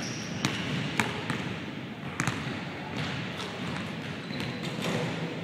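Basketballs bouncing on a hardwood gym floor and being caught, a handful of separate sharp thuds that ring out in the large hall, over steady room noise.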